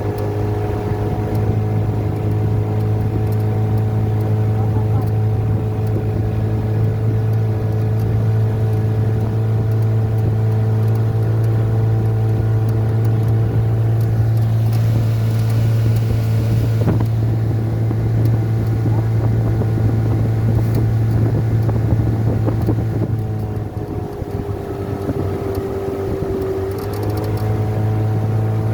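Outboard motor driving a small fishing boat, running at a steady hum. It eases off about three-quarters of the way through, then picks back up to speed near the end.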